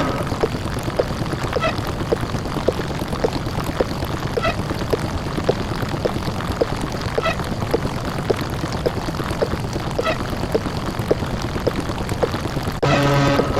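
Heavily distorted, bass-boosted ("deep fried") microwave oven running with a steady droning hum. Short ticks come about twice a second, and every fifth tick is higher and brighter.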